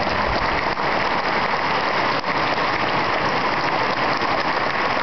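Audience applauding steadily: many hands clapping at once, blending into an even sound with no single claps standing out.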